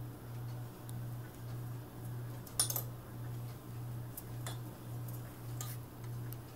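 A steady low hum that swells and fades about twice a second, with one sharp click about two and a half seconds in.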